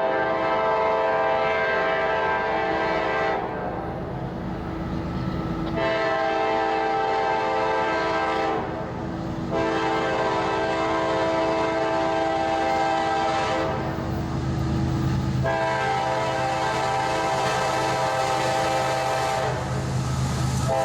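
Locomotive air horn sounding a chord in four long blasts with short breaks between them, over a steady low hum.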